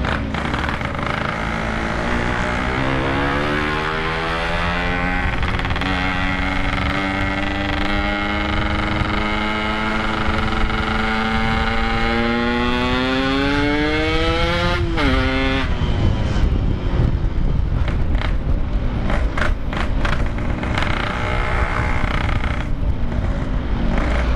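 Yamaha RX-King two-stroke single's engine and exhaust pulling under acceleration, its pitch climbing steadily for about thirteen seconds before the revs drop sharply about fifteen seconds in. It then runs on under gusty wind noise.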